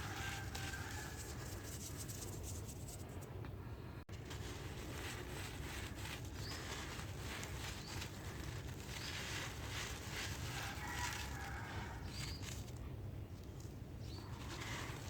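Dry brick dirt crunching and crumbling as lumps are crushed, a steady stream of small irregular crackles and patters.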